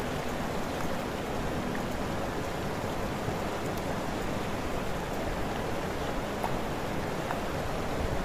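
Steady rushing outdoor noise with a choppy low rumble and no distinct events.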